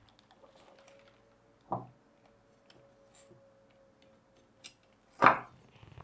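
Metal rods and an aluminium profile rail knocking against a wooden desktop as they are handled and set down: a knock a little under two seconds in, a small click, then a louder knock about five seconds in.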